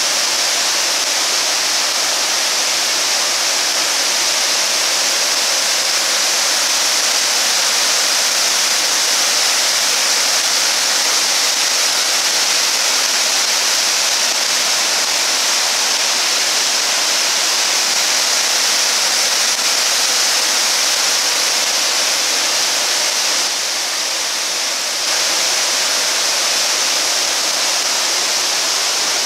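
Waterfall pouring steadily, a constant, even rush of falling water that dips slightly for a second or so about three-quarters of the way through.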